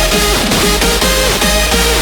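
Background electronic dance music with a steady beat and a repeating bass line.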